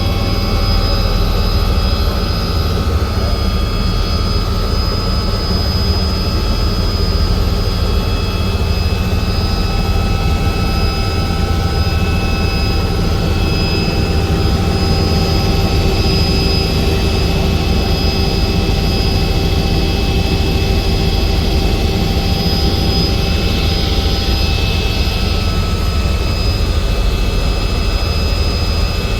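Helicopter in flight: a loud, steady engine and rotor drone with steady high whining tones above it.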